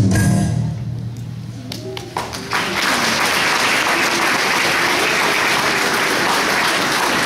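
The last sung note of a children's choir fades, and about two and a half seconds in an audience breaks into steady applause.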